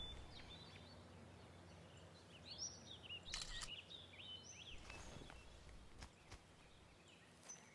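Quiet woodland ambience with a few short, high bird chirps in the middle and a couple of faint soft rustles.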